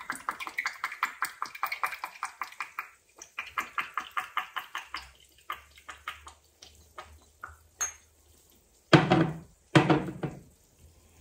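Maggi liquid seasoning dripping from its bottle into a small glass: a fast run of drips at about ten a second that thins out and stops. Near the end come two louder knocks.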